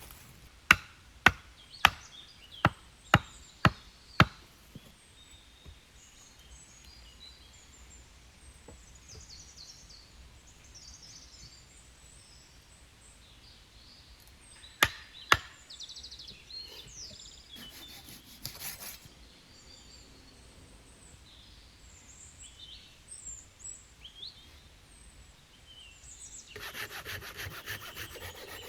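Wood struck with sharp knocks, about two a second, for the first four seconds, then a quieter stretch with birds chirping and two more knocks about halfway through. Near the end, a hand saw starts cutting wood in quick even strokes.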